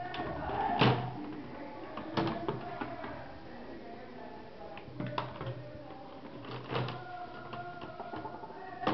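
Sharp plastic clicks and knocks as the LCD side cover of a Dell Studio 1558 laptop is pried off and handled: a handful of separate snaps spread over several seconds.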